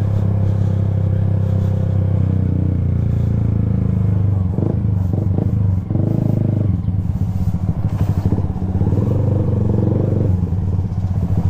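Yamaha Sniper 150's single-cylinder four-stroke engine idling steadily through a Yoshimura Alpha exhaust with its silencer insert removed (open pipe). A few brief clatters come in near the middle.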